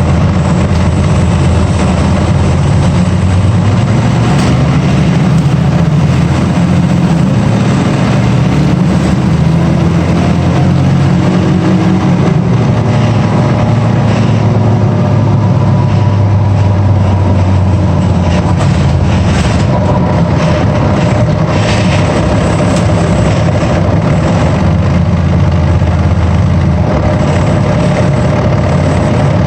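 A heavy vehicle's engine running steadily and loudly. Its low note shifts about twelve seconds in as the engine speed changes.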